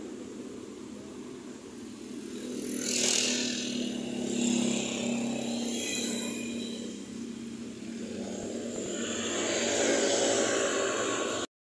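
Street traffic: motor scooter engines running steadily, with louder swells as vehicles pass about three seconds in and again near the end.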